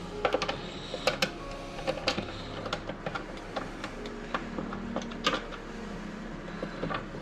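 Irregular clicks and taps of small metal parts being handled: the trolling motor mount's side plate and its screws being fitted by hand.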